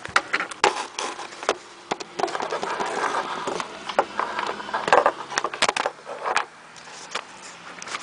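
Irregular knocks, scuffs and rustling on a wooden deck: footsteps and camera handling, with the sharpest knocks about half a second in, around five seconds and near six and a half seconds.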